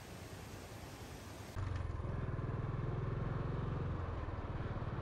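A steady rushing noise for about a second and a half, then a sudden cut to a motorcycle engine running with a rapid low pulsing.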